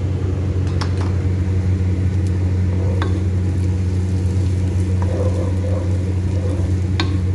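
Diced onions sizzling in hot oil in a pan as they are stirred with a wooden spoon, with a few sharp clicks of the spoon against the pan. A steady low hum runs underneath and is the loudest sound.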